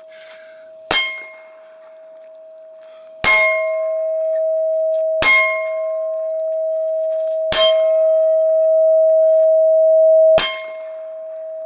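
Five gunshots, two to three seconds apart, each striking a steel target plate, which rings on with a sustained metallic clang after every hit.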